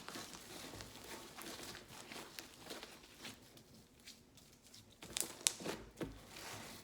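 Slime being squeezed and poked in the hands, giving faint wet clicks and little pops of air bubbles, with a few sharper pops about five seconds in.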